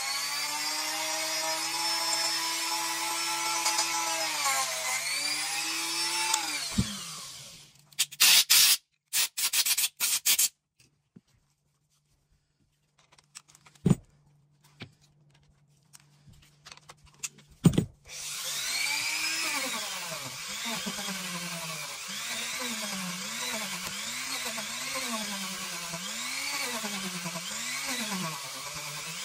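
Handheld rotary tool running at high speed with a steady whine, which winds down about seven seconds in. A few sharp clicks and knocks of small parts being handled follow, then a quiet stretch. Around eighteen seconds in the tool starts again, and its pitch dips and recovers over and over as it is pressed against a small steel shotgun part to scrub off fouling.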